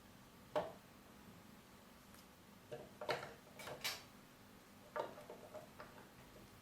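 Scattered light clicks and clatters of AA batteries being handled: one click about half a second in, a quick cluster around the middle, and a few more near the end.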